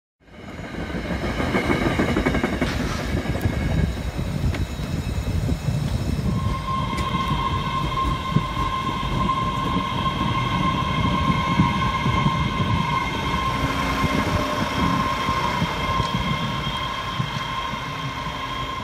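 MBTA Red Line subway train running on its rails with a steady rumble. A steady high whine joins about six seconds in and holds.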